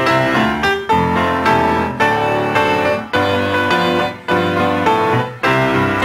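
Instrumental piano music, with chords struck about once a second.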